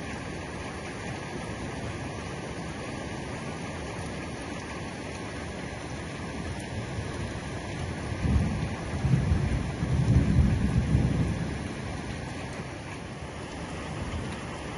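Heavy rain falling steadily on a roof. About eight seconds in, a low rumble of thunder swells for about four seconds, then fades.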